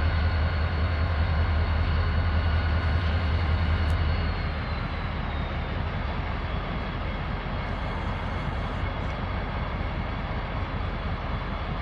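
Norfolk Southern 3422's diesel locomotive engine working as it rolls slowly past: a heavy, steady low drone with a high whine. About four seconds in the engine sound drops off and the whine slides lower in pitch.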